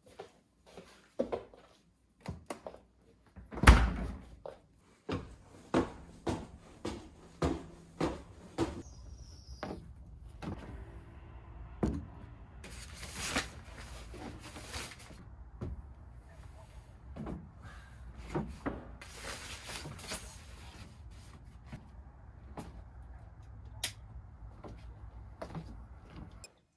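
Knocks and clunks of household things being handled, set down and shut, the loudest a heavy thump about four seconds in. After that a steady low hum runs under more scattered knocks, with two spells of hissing noise.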